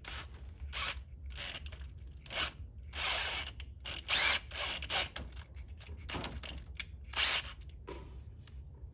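Cordless drill boring into the aluminium cylinder head of a 6.2L LT1 V8 through a drill-guide bushing, drilling out a stripped head bolt hole for a thread insert. The drill runs in a string of short bursts, the loudest about four and seven seconds in.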